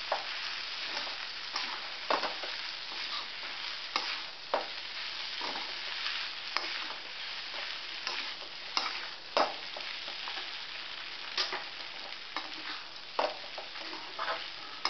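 Metal spatula stirring sabudana khichdi in a steel kadhai, scraping and tapping the pan irregularly, about once a second, over a steady sizzling hiss from the still-hot pan.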